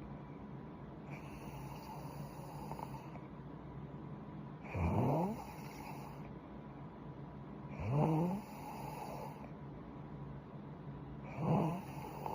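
A woman snoring in her sleep: three loud snores about three seconds apart, each sliding up in pitch.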